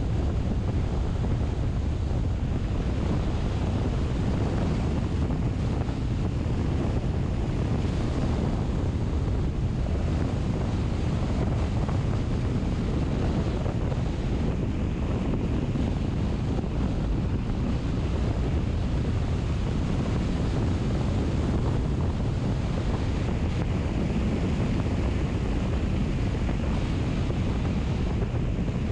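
Steady rushing noise, heaviest in the low end and unbroken, with no distinct events.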